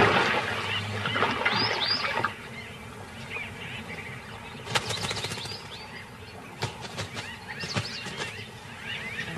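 Flock of white-fronted bee-eaters calling, quick chirps that rise and fall, with a few sharp small splashes as birds dip into the water. The wash of a crocodile's splash dies away over the first two seconds.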